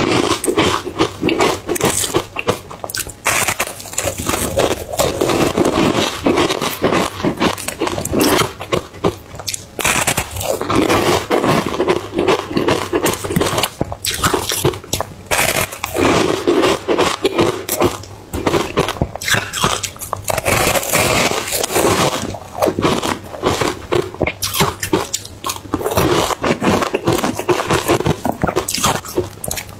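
Close-miked biting and chewing of large frozen matcha ice chunks: a dense, continuous crunching and crackling, with bite after bite throughout.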